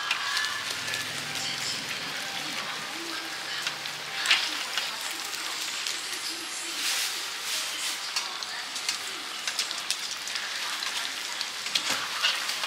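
Shrimp deep-frying in a wok of hot oil, a steady sizzle, with sharp metal clinks as the wire skimmer knocks against the wok, the loudest about four seconds in and a few more near the end.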